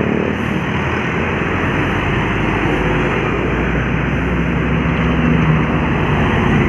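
Large bus diesel engine running close by as it passes at low speed through a U-turn, over steady road traffic noise. The deep low rumble grows about a second and a half in, and a steady engine tone becomes clearer near the end.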